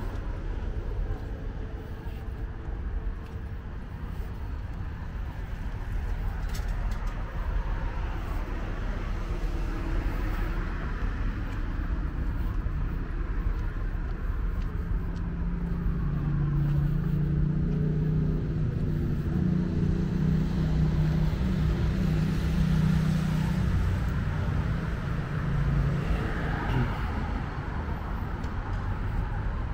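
Road traffic going by: cars passing with a steady low rumble, and a vehicle engine's low hum growing louder for several seconds around the middle.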